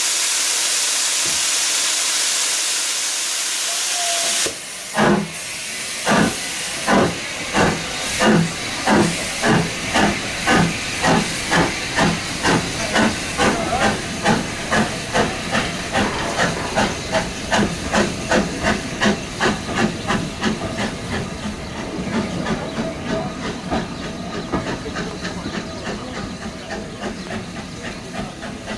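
Steam locomotive giving a steady hiss of steam that cuts off about four seconds in. Its exhaust beats then start slowly, about one a second, and quicken to about three a second as it pulls away, growing fainter.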